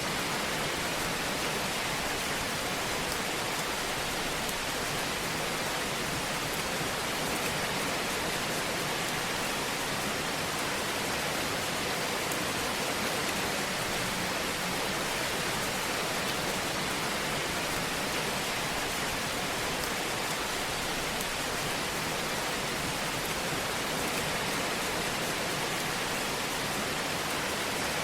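Fire burning in a fireplace: a steady hiss with faint scattered crackles.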